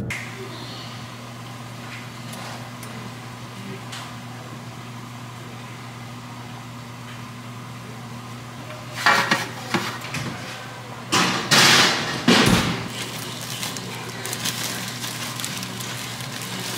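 Kitchen clatter of metal cookware: a fork and a metal tray clanking on the countertop, loudest in several sharp clanks about nine to thirteen seconds in, over a steady low hum.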